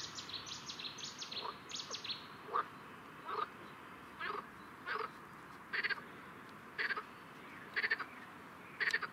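Frogs croaking: short pulsed calls repeating about once a second. A bird sings a quick run of high chirps over the first two seconds.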